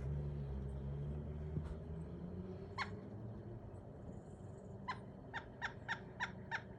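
Pileated woodpecker calling: a single call about three seconds in, then a run of about seven short, evenly spaced notes near the end, roughly three a second. A low rumble during the first two seconds.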